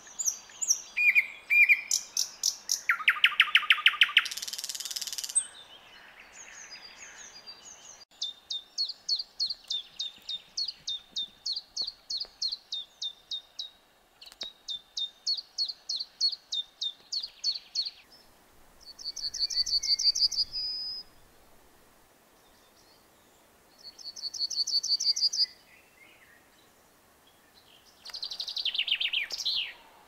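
Four songbirds sing one after another. First a thrush nightingale, with loud, varied phrases of rapid clicks and rattles. Then a common chiffchaff repeats its simple notes about twice a second; a yellowhammer sings two fast trills of repeated notes; and near the end a chaffinch sings a falling trill with a flourish.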